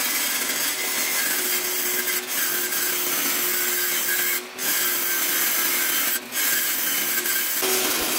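Table saw blade ripping through the wall of an aluminium square tube: a steady hissing, screeching cut with a faint hum from the saw underneath. It drops off briefly twice, about halfway through and again near three-quarters of the way.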